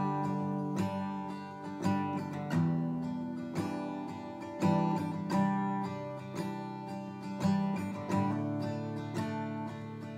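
Acoustic guitar strumming chords on its own, an instrumental break in a country song.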